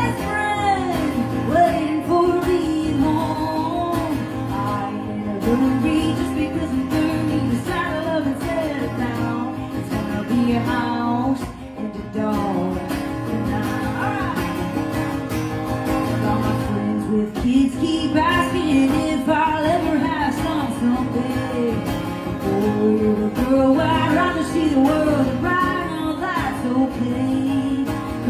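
A woman singing a pop-country song live while strumming an acoustic guitar, her voice carrying the melody over the steady strum. There is a short drop in the singing about twelve seconds in.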